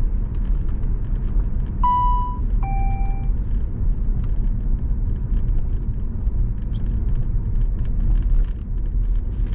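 Cabin noise inside a 2004 Saab 9-5 Aero cruising at about 30 mph: a steady low road and engine rumble heard through the freshly sound-deadened interior. About two seconds in, a short two-note electronic chime sounds, the second note lower.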